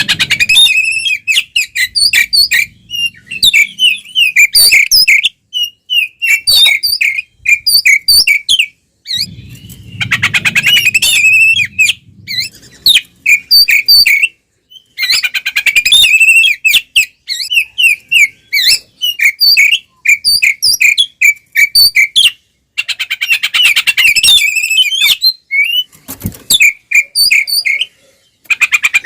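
Oriental magpie-robin (kacer) singing loudly in rapid, varied phrases of whistles and chattering notes. The phrases come in bursts of a second or two with short pauses between them. It is the excited, combative full song that keepers call 'ngeplong tarung'.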